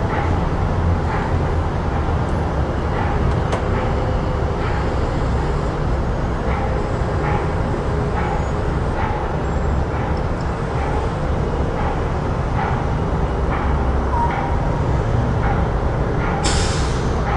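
Busy city street ambience: a steady traffic rumble with faint regular ticks about twice a second, and a short sharp hiss near the end.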